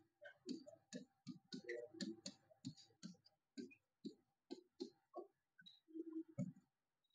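Marker tip tapping and scratching on a writing board as words are written: faint, irregular clicks about two or three a second, over a faint steady hum.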